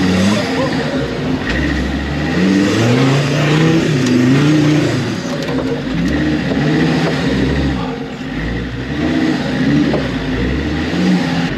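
Off-road race car's engine, heard from inside the open cockpit, revving up and down repeatedly as it is driven.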